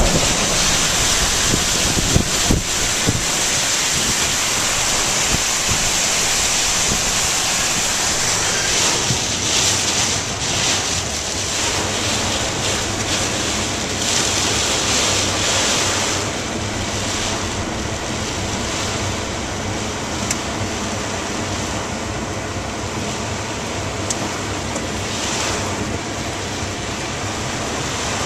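Hurricane wind and driving heavy rain, a loud steady rushing with gusts buffeting the microphone. About sixteen seconds in, it turns a little quieter and steadier.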